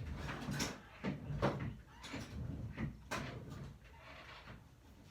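A string of separate knocks and clatters of hard objects being handled and moved about, thinning out toward the end.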